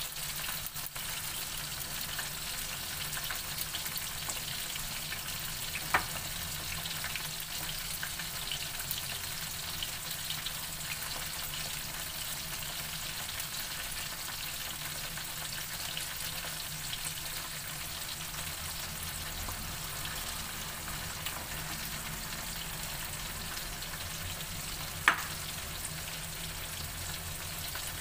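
Flour-coated chicken intestines deep-frying in oil over medium heat, a steady sizzle without popping or spattering, which the cook puts down to the flour coating. Two short sharp knocks cut through it, a small one about six seconds in and a louder one near the end.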